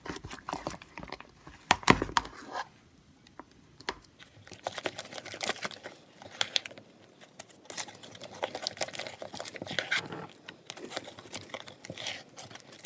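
Glue-and-shaving-foam slime being stirred and worked as borax activator is mixed in, making irregular sticky clicks and crackles, with one louder knock about two seconds in.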